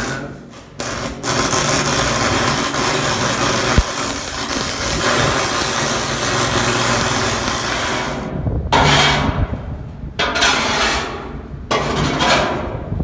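Electric arc welding on the inside of a steel tank: a loud, continuous crackling sizzle from the arc. It starts about a second in and runs for several seconds, then comes in three shorter bursts with brief pauses as the arc is broken and struck again. A steady low hum runs underneath.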